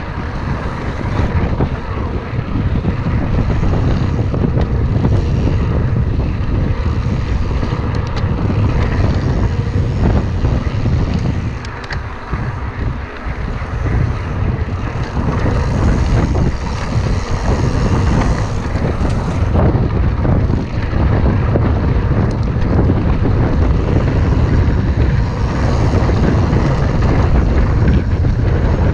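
Wind buffeting the microphone of a handlebar-mounted camera while a mountain bike rolls fast over a dry dirt and gravel trail. Tyre and frame rattle run throughout, with occasional sharp knocks from bumps and a brief lull about twelve seconds in.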